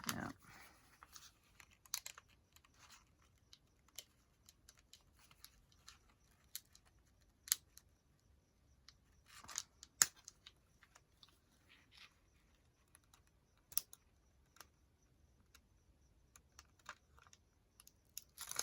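Quiet handling of journal pages: scattered light ticks and paper rustles as stuck paper is picked and peeled at, with a few sharper clicks now and then.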